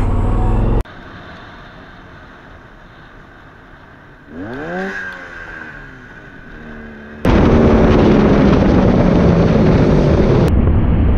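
Motorcycle engines heard from onboard cameras in spliced ride clips. A loud low rumble cuts off abruptly under a second in. A quieter stretch follows, in which an engine note rises and falls about four to five seconds in. Loud engine noise with a steady hiss starts suddenly about seven seconds in.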